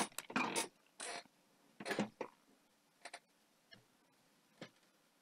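A handful of faint, short clicks and rustles, bunched in the first two and a half seconds with a few more later.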